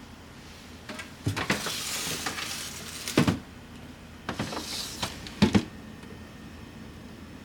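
Household handling at a freezer: two spells of rustling and sliding, each ending in sharp knocks, the loudest just past the middle and near the end.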